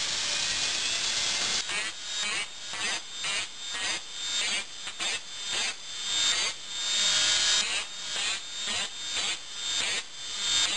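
Dremel rotary tool run at its slowest speed, its small abrasive disc grinding the tops of a bandsaw blade's teeth. A steady grind at first, then short touches tooth after tooth, about two a second, with the motor's pitch dipping at each touch.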